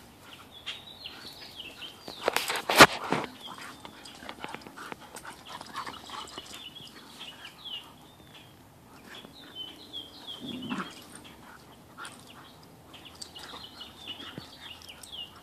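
Two dogs, a Siberian husky and a shaggy dog, play-fighting: dog noises and panting, with a sharp, loud noise about two and a half seconds in.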